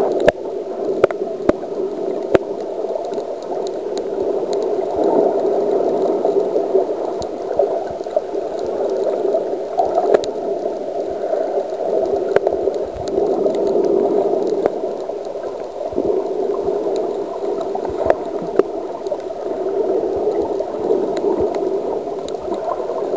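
Muffled underwater water noise recorded by a submerged camera: a steady low rushing with scattered sharp clicks.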